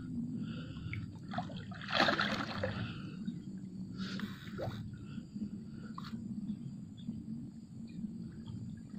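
Water splashing as a large hooked patin catfish thrashes at the river surface, the loudest splash about two seconds in and another about four seconds in, over a steady low rumble.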